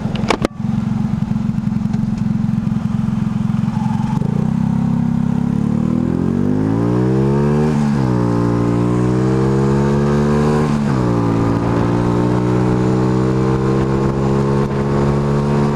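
Motorcycle engine running at a steady speed, then accelerating with a rising pitch. The pitch drops sharply at two gear changes, about halfway through and about three seconds later, then holds steady. A brief click comes just after the start.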